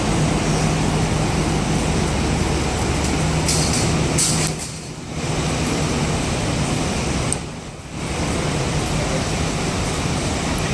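Steady city street traffic noise with the low, steady hum of a heavy diesel engine idling close by; the din dips briefly twice, about four and seven seconds in.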